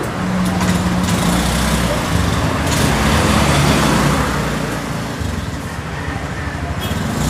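A motor vehicle engine runs nearby with a low hum, swelling to its loudest about three to four seconds in and then easing off.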